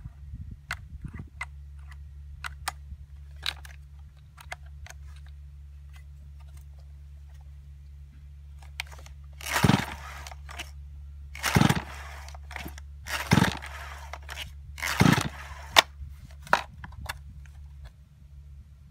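Stihl MS170C chainsaw's recoil starter pulled four times, about two seconds apart, without the engine catching. Before the pulls there are light clicks as the on-off switch lever is worked.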